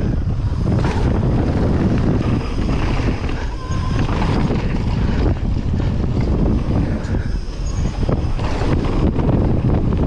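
Wind rushing over the camera microphone on a fast mountain-bike descent of a wet, muddy trail, with tyre noise and the bike rattling and knocking repeatedly over rough ground.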